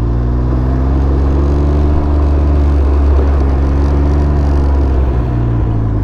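Can-Am Ryker 900's three-cylinder Rotax engine running at low road speed, its pitch rising a little about a second in, holding steady, then dropping near the end as the trike slows.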